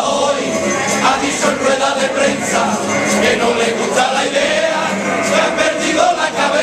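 Male carnival choir singing a song together in Spanish from a parade float.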